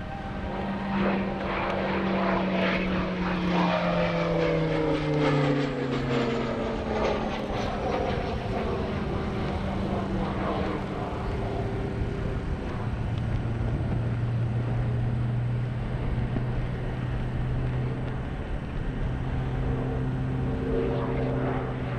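Shorts Tucano turboprop's engine and propeller droning overhead during aerobatics. The pitch drops over the first several seconds as the aircraft passes, then the drone holds steady and lower.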